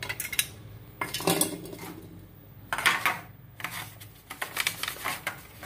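Hands handling thin metal: a tin toy boat set down and a disposable aluminium foil tray pressed and crinkled, giving irregular clattering knocks and crinkling.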